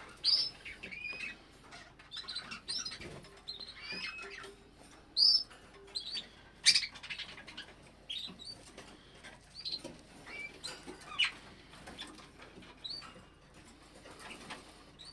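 Eurasian siskin held in the hand, giving short, high, arched whistled calls again and again, mixed with rustling as it shifts in the grip. There are two louder sharp knocks about five and seven seconds in.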